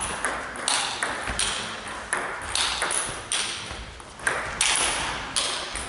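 Table tennis ball striking the rubber-faced bats and the table during a rally: a quick series of sharp clicks, several a second, each ringing out with the echo of a large sports hall.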